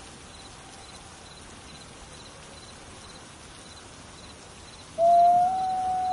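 Gray wolf howling: a long, clear howl starts about five seconds in, rising slightly at first and then holding its pitch. Before it, faint high chirps repeat about twice a second.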